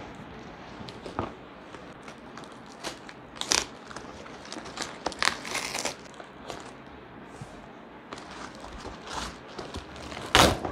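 A ring light's packaging being opened and handled: irregular rustling and crinkling, with a louder brief rustle near the end.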